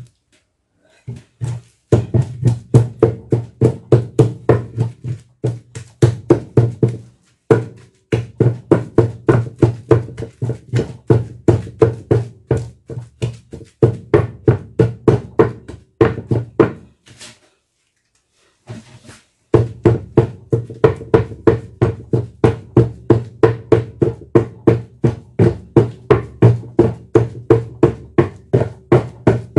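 Wooden pestle pounding hot boiled yam in a wooden mortar: steady, dull thuds at about two to three strokes a second. This is the first stage, crushing the soft yam chunks into a mash. The pounding pauses briefly about 7 s in and for about two seconds after 17 s.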